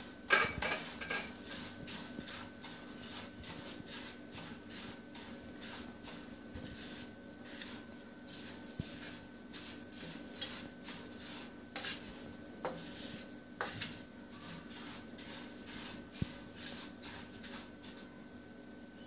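A wooden spatula stirring and scraping dry white sesame seeds around a nonstick frying pan while they dry-roast: the seeds rustle and the spatula rasps against the pan in repeated strokes, loudest in the first second. A faint steady hum runs underneath.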